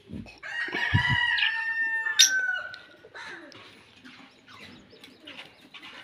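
A rooster crowing: one long crow starting about half a second in and lasting about two seconds, dropping in pitch at the end. Quieter chirping of small caged birds follows.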